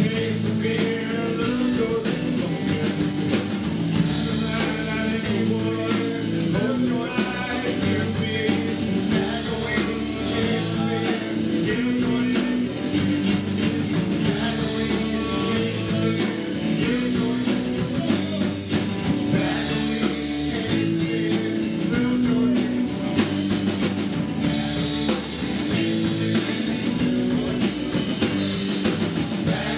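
Live blues-rock band playing: electric guitars and a drum kit keeping a steady groove through a full-band passage.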